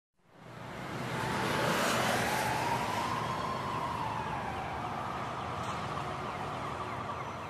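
Vespa scooter ride with road and wind noise, and a whine that rises in pitch over the first few seconds, holds, then slowly falls, like the scooter accelerating and easing off.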